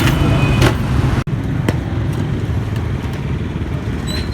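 Steady road-traffic rumble of a busy street, with a few sharp knocks. The sound drops out for an instant about a second in.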